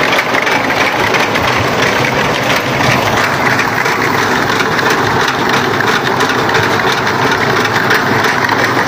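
A Ghazi tractor's diesel engine running steadily, the engine that drives its front-mounted chain reaper.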